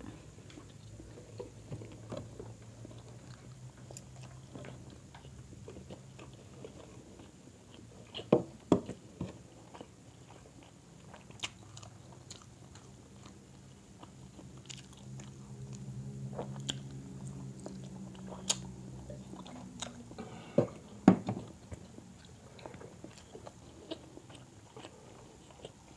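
Close-mic eating sounds of grilled chicken eaten by hand: chewing, biting and lip smacks, with scattered sharp clicks and a few louder knocks about 8 seconds in and again near the end.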